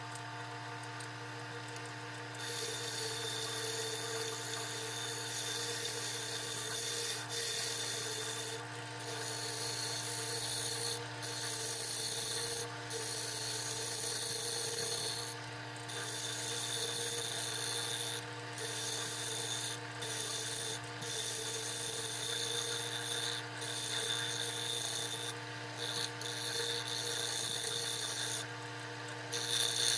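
Wood lathe running with a steady motor hum while a hand-held turning tool cuts the spinning segmented wood bowl. From about two seconds in, the tool's scraping cutting noise comes in repeated passes, breaking off briefly every second or few seconds as the tool is eased off the wood.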